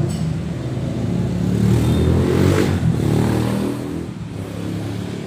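A motor vehicle engine running nearby, a low hum that shifts up and down in pitch and eases off near the end.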